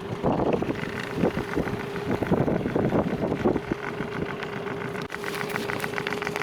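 Small boat's outboard motor running steadily, its hum half-buried under gusty wind buffeting the microphone and waves splashing against the boat in rough, whitecapped water.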